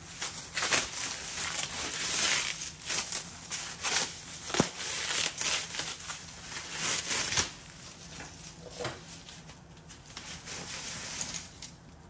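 Plastic packaging being handled, crinkling and tearing in bursts with a few sharp clicks, then dying down to quieter handling over the last few seconds.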